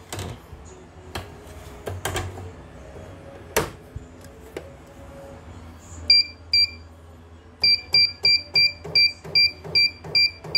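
CNY portable embroidery machine under test: a few clicks and knocks of handling, then two short beeps from its touchscreen buttons about six seconds in, and from near eight seconds a steady run of high beeps, about three to four a second.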